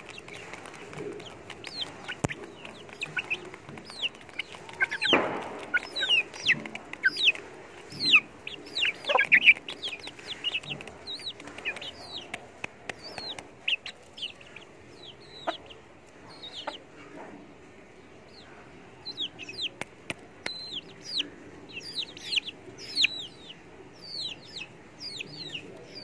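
Domestic chickens calling while they feed: many short, high, falling peeps and chirps in quick irregular runs, with a few lower clucks among them.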